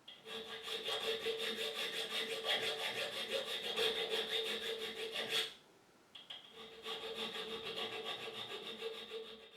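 Hand file rasping back and forth on a metal key blank in quick, even strokes, with a ringing tone from the metal. It comes in two runs with a short pause a little past halfway: the bitting of a lever-lock key being filed to fit.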